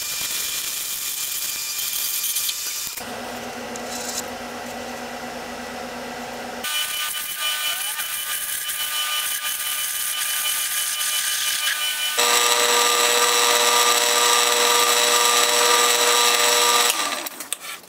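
Small metal lathe running and cutting bronze: a parting tool parting off small wheels, then a cutter in the drill chuck working the spinning bronze. A steady machine whine over a cutting hiss, changing abruptly in pitch and level about three, seven and twelve seconds in.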